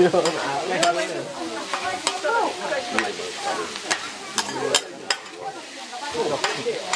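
Fried noodles sizzling on a large flat iron griddle while two metal spatulas scrape and toss them. Sharp clacks of spatula on the metal plate come about once or twice a second.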